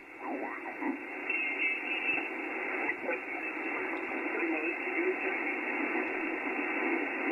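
Icom IC-7610 HF receiver audio: a steady band-noise hiss heard through the narrow single-sideband filter while tuning up the band, with a few faint whistling tones of signals passing. The hiss is the raised noise floor of about S5 that the operator is troubleshooting.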